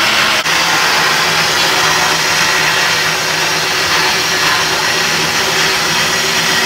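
Electric blender running steadily, grinding tomatoes and chiles for salsa, with a brief dip about half a second in.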